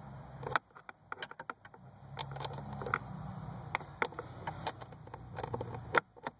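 Small, irregular metallic clicks and taps of a screwdriver-handle driver with a swivel socket and extension turning a screw, over a steady low hum.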